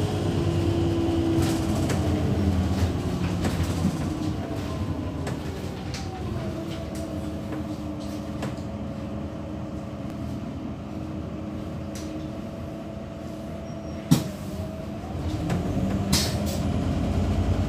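Ride inside an electrically driven city transit vehicle: the motor whine falls as it slows, holds steady while it runs quietly, then rises again as it picks up speed after a single sharp click about fourteen seconds in.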